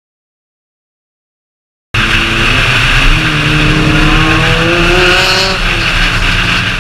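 After about two seconds of silence, cars accelerating on the road cut in suddenly and loudly: engine notes climbing in pitch under heavy wind rush over the outside-mounted camera.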